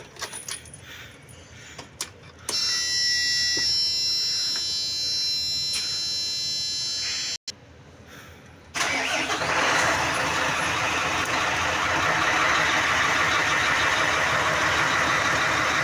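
Mercedes-Benz Actros 2040 truck's V6 diesel engine being started on its first start after an oil change: a steady whine from about two and a half seconds in, a brief break, then the engine catches about nine seconds in and runs steadily at idle.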